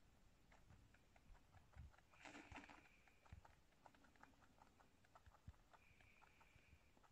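A rabbit feeding from a ceramic bowl: faint, rapid, irregular small clicks of its mouth working at the bowl, with a brief louder rustle about two seconds in.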